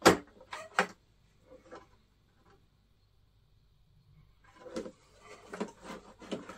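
Sharp clicks and light knocks of small parts being handled: one loud click at the start and two more just after, a quiet pause, then a quick run of clicks and taps near the end.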